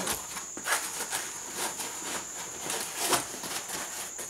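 Handling noise at a nylon backpack's zippered, hard-shelled pocket: fabric rustling and zipper clicking, with two louder knocks, one under a second in and one about three seconds in.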